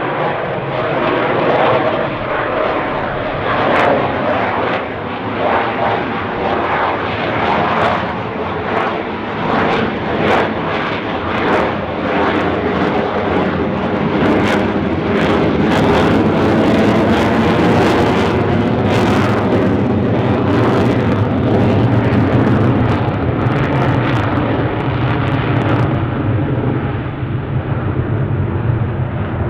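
RAAF F-35A Lightning II's single F135 afterburning turbofan: a loud, continuous jet roar as it flies its display. The sound wavers and flickers through the first half, then settles into a steadier, deeper roar.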